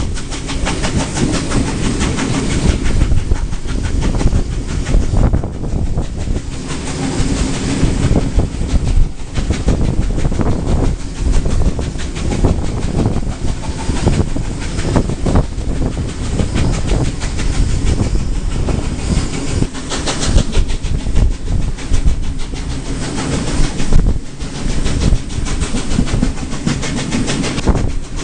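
Carriage of a steam-hauled train rolling along, its wheels clattering steadily over rail joints and points.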